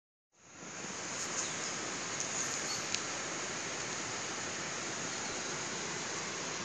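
Steady hiss of outdoor background noise that fades in at the start, with a few faint clicks in the first half.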